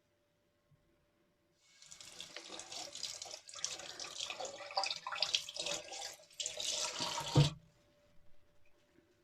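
Tap water running into a sink for about six seconds, splashing unevenly with two brief breaks, then cut off with a sharp knock near the end.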